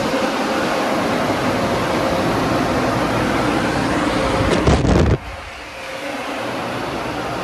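Hydraulic-drive rollover friction car wash machine running, a steady rushing noise of air or water. It swells briefly with a few sharp knocks, then drops off suddenly about five seconds in.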